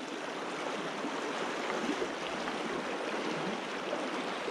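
Steady rushing of a flowing river, an even sound of running water.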